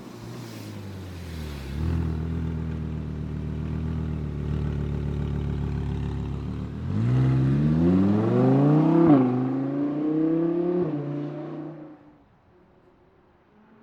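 Audi R8 engine running at a steady pitch, then accelerating hard from about seven seconds in. The pitch climbs, dips sharply once near nine seconds like an upshift, and climbs again. The sound then drops away quickly near the end.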